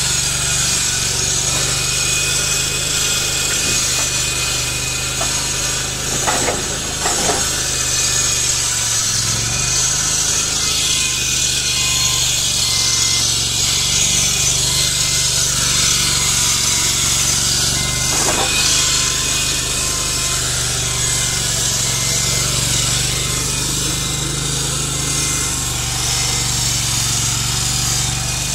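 Forklift engine running steadily with a low hum and a high hiss, with a few brief knocks about six seconds in and again near eighteen seconds.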